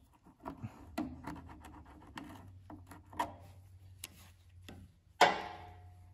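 Small metal clicks as snap ring pliers work a snap ring off a Honda HRX217 mower's rear-wheel drive-gear shaft, then rubbing as a rag wipes around the gear. About five seconds in comes one sharp metal clank with a brief ring.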